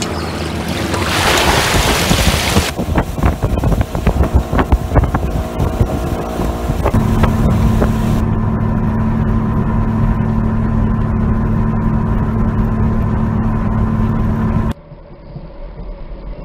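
Small boat's outboard motor running, with wind on the microphone, settling into a steady hum. The sound drops off sharply near the end.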